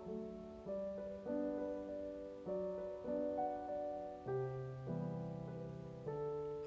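Background piano music: calm chords, each held and then changing about once a second.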